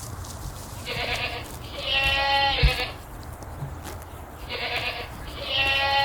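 A sheep bleating twice, each call a short cry followed by a longer, wavering one, about three and a half seconds apart.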